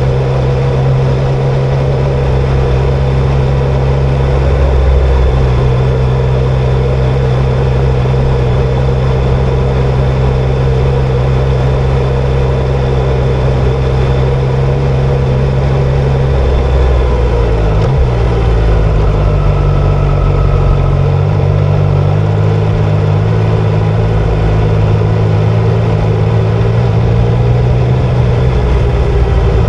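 Triumph Tiger Sport 660's three-cylinder engine running under way at a steady note, with road and wind noise. About two-thirds of the way through the pitch dips and then settles at a slightly different steady note, as with a change of throttle or gear.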